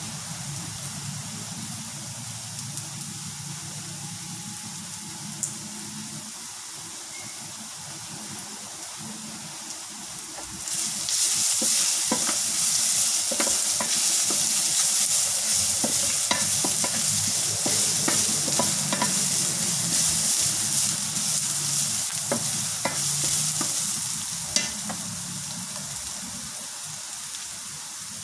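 Minced garlic and ginger sizzling in hot oil in a stainless steel wok, with a wooden spatula stirring and scraping against the pan in scattered clicks. The sizzle turns much louder about ten seconds in and eases off near the end.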